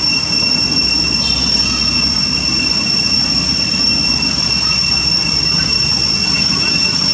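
Steady high-pitched drone of a cicada chorus, unbroken, with a low rumble underneath.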